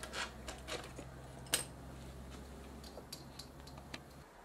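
Light clicks and taps of a small hand tool against the metal and plastic internal chassis of a partly dismantled Sony PMW-EX1 camcorder, the sharpest click about a second and a half in. A faint steady low hum runs under them and stops near the end.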